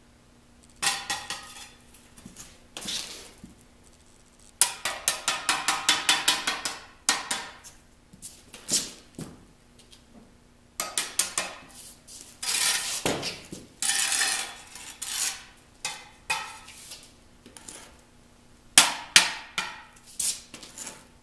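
Steel brick trowel tapping on brick in several runs of quick, sharp metallic taps with short pauses between, as bricks are knocked into line against a level and a straightedge.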